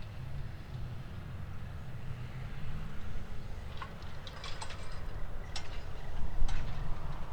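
Low, steady rumble of a Fendt 936 tractor's six-cylinder diesel under load pulling a plough through the field. A few short, sharp high clicks or chirps come in over it in the second half.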